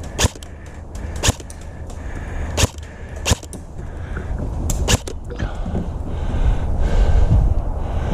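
Airsoft guns firing single shots: a string of sharp, irregularly spaced snaps with fainter clicks between them, over a low rumble that grows louder in the second half.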